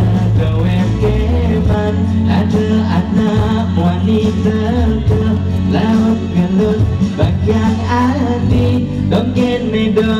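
A man singing into a microphone over amplified band music with steady bass notes, all heard through a PA system.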